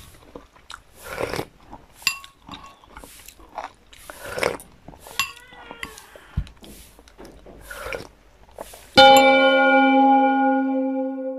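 A spoon and fork clink and scrape against a dinner plate in short, irregular strokes. About nine seconds in, a loud bell-like chime rings out and slowly fades.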